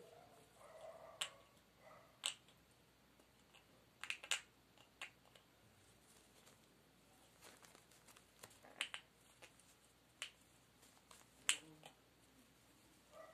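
Severe macaw chewing and shredding paper with its beak: irregular sharp clicks and snips, a dozen or so, spaced unevenly.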